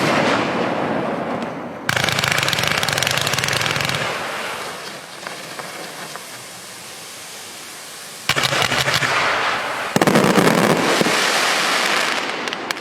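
Large compound firework cake firing rapid volleys of bangs and crackle. A few seconds of scattered pops separate two volleys, and a new volley starts about eight seconds in.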